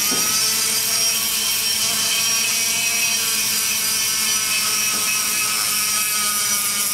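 Die grinder spinning a grit abrasive bit against the cast-aluminum exhaust port of an LS cylinder head: a steady high whine with a grinding rasp, held evenly throughout.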